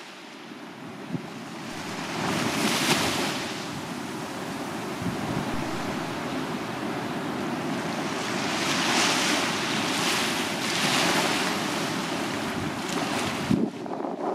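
Small sea waves breaking gently and washing up a sandy beach, the wash swelling about two to three seconds in and again around nine to eleven seconds in.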